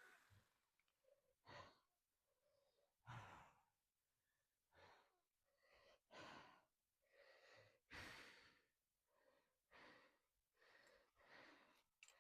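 Faint heavy breathing from a person: a string of separate breaths, some sighing, each under a second long with short quiet gaps between.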